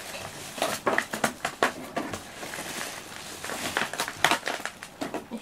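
Plastic packaging rustling and crinkling while being handled, a run of irregular crackles with a few sharper clicks.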